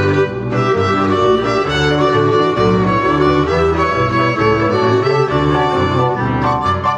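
Instrumental music played by a quintet: a held melody over a bass line that moves note by note, about two notes a second.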